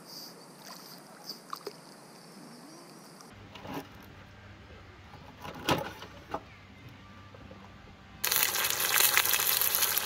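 A kitchen knife knocking on a wooden cutting board a few times as small fish are cut up. Then, about eight seconds in, battered fish frying in a small pot of hot oil, a loud steady sizzle.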